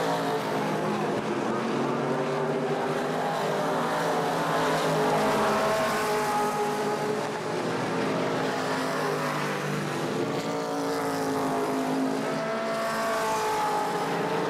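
A pack of late model stock cars racing past, their V8 engines running hard together, several engine notes overlapping and rising and falling in pitch as the cars go by.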